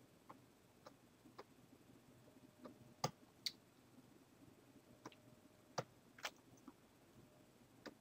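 Near silence with about ten faint, sharp clicks at irregular intervals from computer input at a desk, the sharpest a little after three seconds in and near six seconds.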